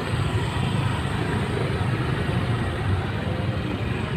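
Motorcycle engine running at low speed in dense, slow-moving traffic, a steady low drone with the noise of surrounding cars and scooters.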